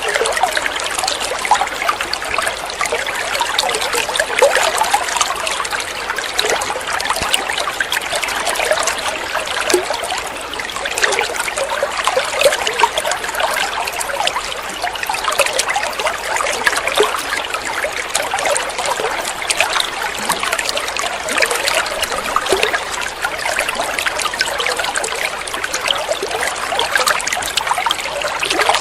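Water running and trickling steadily, a busy bubbling splash with no pause.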